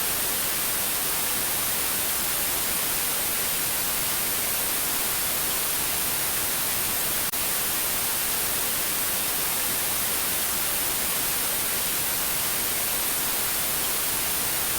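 Steady hiss of static, an even white noise that is strongest in the high treble, with a momentary dip about seven seconds in.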